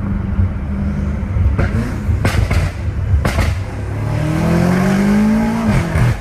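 BMW M5 Competition F90's twin-turbo V8, running on downpipes, under throttle with several sharp exhaust pops. About four seconds in the revs climb steadily, then drop quickly near the end with another pop.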